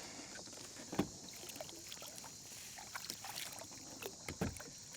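Knocks and light water sounds on a kayak, with a sharper knock about a second in and another near the end, over a steady high hiss.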